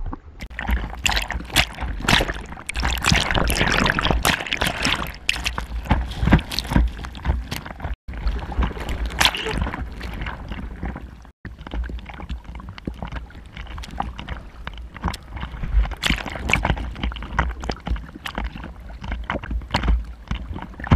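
Seawater splashing and sloshing against a GoPro held at the surface in choppy sea, with many sharp splashes; loudest in the first few seconds. The sound cuts out briefly twice.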